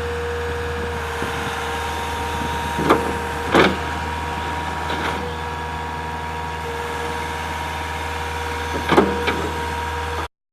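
Takeuchi TL240 track skid steer's diesel engine running steadily with a low drone, with a handful of short sharp clunks from the machine, two close together about three seconds in and two more near the end. The sound cuts off abruptly just before the end.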